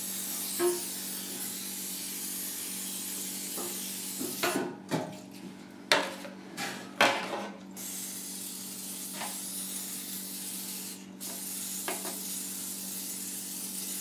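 Aerosol cooking spray hissing in long sprays as loaf pans are greased. Metal and foil pans clatter and rattle as they are handled about halfway through.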